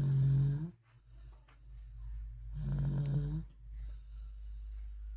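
A two-year-old child snoring: two pitched snores about two and a half seconds apart, each lasting under a second, over a steady low hum. Snoring like this in a toddler is, by the uploader's account, not normal.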